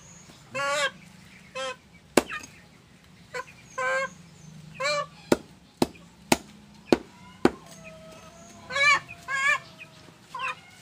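A chicken squawking in repeated wavering calls, mixed with a large knife chopping through chicken parts on a wooden stump: about six sharp chops, five of them in quick succession through the middle.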